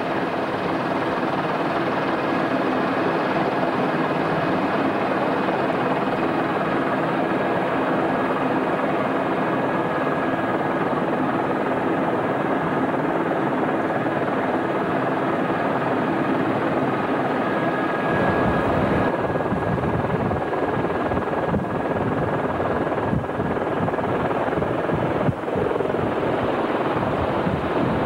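Helicopter noise: inside the cabin of an AS350B Squirrel in flight, its single Turbomeca Arriel turbine and rotor make a steady whine and drone. About two-thirds of the way in the sound changes to helicopters flying overhead, heard from the ground as a fluttering rotor sound.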